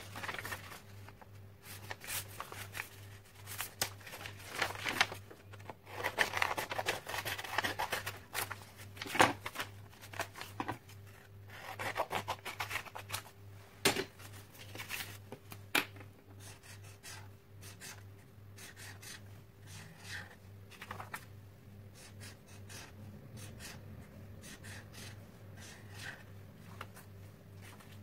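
Scissors cutting sheets of paper: irregular snips and paper rustling for about the first sixteen seconds, then quieter, sparser paper handling.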